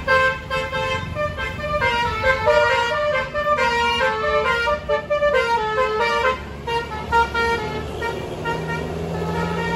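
Tour bus's 'basuri' telolet horn, a set of electric air-horn trumpets, playing a tune of several notes at once that step up and down in pitch, over the bus engine running. The tune stops about six and a half seconds in, leaving the engine rumble and a steady low hum.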